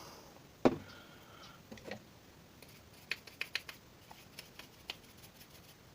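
Light clicks and taps of small carburetor parts and tools being handled: one sharp click just over half a second in, then scattered small ones, several close together about halfway through.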